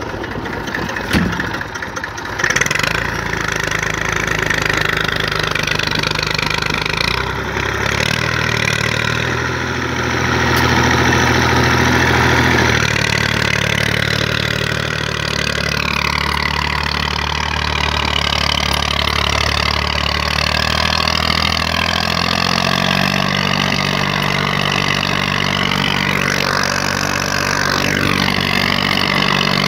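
IMT 539 tractor's diesel engine running steadily under load while the tractor hauls firewood through snow. Its pitch shifts in a few steps as the engine speed changes.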